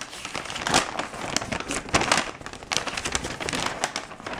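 Paper instruction leaflet being unfolded from its accordion folds, the sheets crinkling and rustling with irregular sharp crackles.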